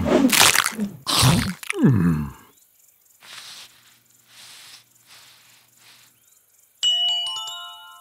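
Cartoon characters laughing loudly for about two seconds. About seven seconds in comes a mallet-percussion sting, a quick downward run of bell-like glockenspiel notes that rings on and fades.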